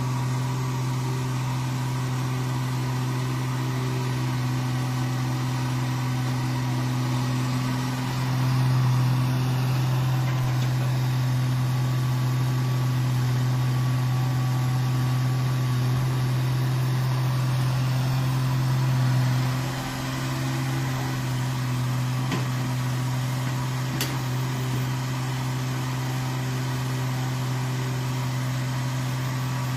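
Sumitomo hydraulic excavator's diesel engine running with a steady low hum, growing a little louder for about ten seconds in the middle.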